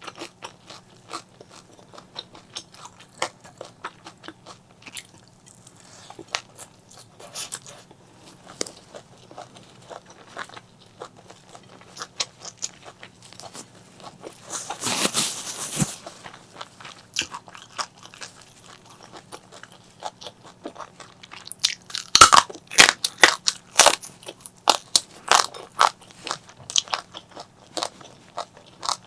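Close-miked eating: crisp bites and chewing of fried fish, with scattered crunches. A second-long rushing noise comes about halfway through, and the crunching gets louder and denser for the last several seconds.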